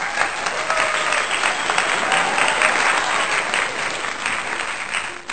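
Crowd applause: dense, steady clapping with a few faint voices mixed in, easing off slightly near the end.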